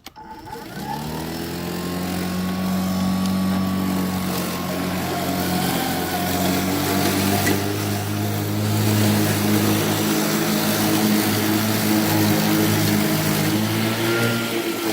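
Kobalt 80V battery-powered electric lawn mower's motor and blade spinning up about half a second in, the hum rising in pitch over a second or so, then a steady whir as it cuts grass.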